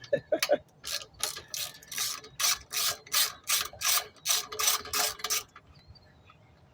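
Ratchet wrench with a 10 mm socket being worked back and forth on a bolt of a small lawn mower engine, its pawl clicking in quick even strokes about three a second, then stopping near the end.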